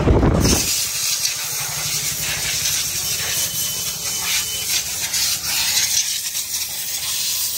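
A motorcycle engine's sound drops away abruptly about half a second in, leaving a steady hiss with a faint low pulsing beneath it.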